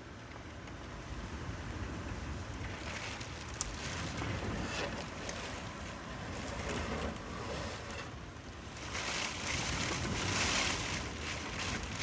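Hurricane wind gusting, rising and falling in surges, with the strongest gust about nine to eleven seconds in. A single sharp click sounds about three and a half seconds in.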